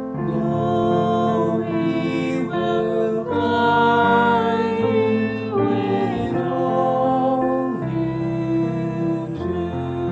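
Slow, gentle worship music: sustained chords that change every second or two.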